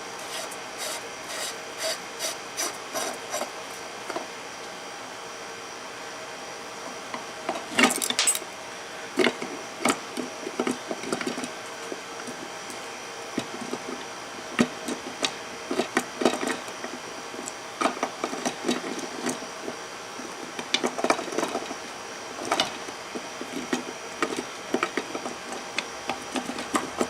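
Hand tools and metal parts of a Suzuki Samurai steering gearbox clicking, knocking and scraping as the gearbox is taken apart. It opens with a quick run of evenly spaced ticks, and from about eight seconds in come irregular sharp knocks and scrapes.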